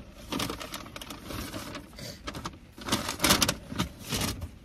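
Paper takeout bag rustling and crinkling in uneven spurts, loudest about three seconds in.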